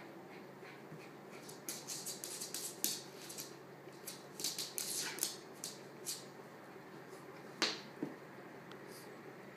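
Small terrier scuffling with a large plush toy: quick scratchy clicks and rustles in two flurries, then a couple of single sharper clicks near the end.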